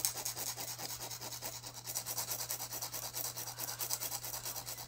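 A nail file scraping in quick, even back-and-forth strokes across the tips of Gel-X soft gel nail extensions, filing and shaping them.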